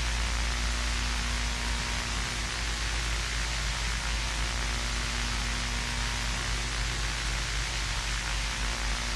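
Steady static hiss with a low hum beneath it, unchanging throughout.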